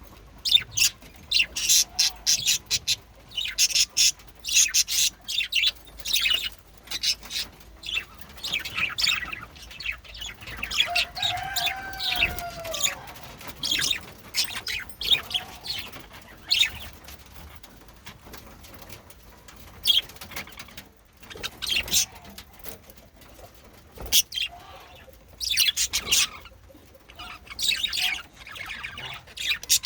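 Male budgerigars chattering and chirping in rapid, short bursts, with a lower whistled call that rises and falls about eleven seconds in.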